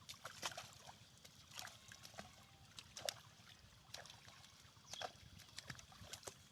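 Faint, irregular water splashes and drips: a handful of short splashes a second or so apart over a low trickling background.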